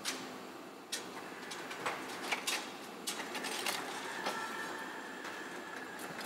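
Engine-plant factory floor: scattered metallic clanks and clicks over a steady machinery din, with a thin steady whine from about four seconds in.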